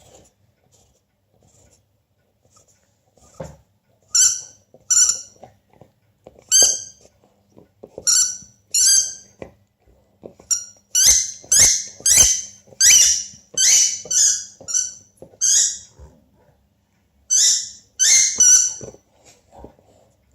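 Squeaky dog toy squeezed repeatedly in a golden retriever's jaws: short, high-pitched squeaks in bursts, first a few spaced squeaks, then a rapid run of them about halfway through, with a few dull thuds among them.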